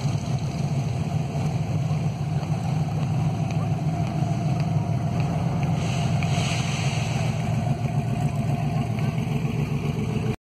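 Steady low engine rumble of classic cars driving slowly past.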